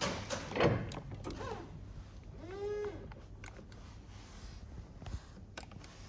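A clatter with a falling whine at the start, then, about halfway through, an electric motor whines briefly: its pitch rises, holds for a moment and falls away. A few light ticks follow.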